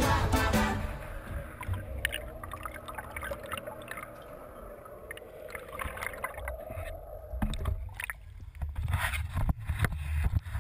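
Muffled underwater hum of a sportfishing boat's engine picked up by a camera held below the surface, steady for several seconds. In the last few seconds the camera comes up out of the water: splashing and sharp knocks of water against the housing over a low rumble.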